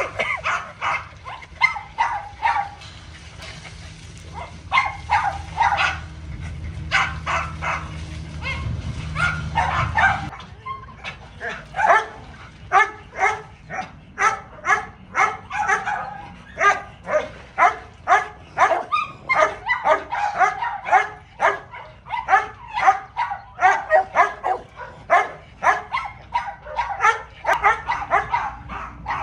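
Dogs barking: scattered bursts of short barks at first, over a low steady rumble that stops about ten seconds in. Then a rapid, fairly regular run of sharp barks, about two a second, until the end.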